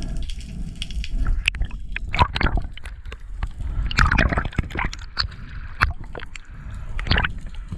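Underwater sound picked up by an action camera in its housing: water gurgling and sloshing over a low rumble, with many scattered sharp clicks and crackles, in denser clusters about two, four and seven seconds in.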